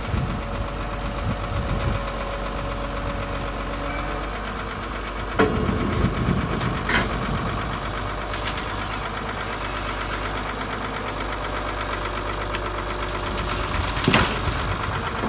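An engine running steadily, with a few sharp knocks, the loudest near the end.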